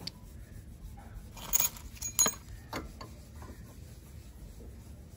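Light metallic clinks and a short jangle from small metal parts or tools being handled, a few separate strikes with the loudest about one and a half and two seconds in.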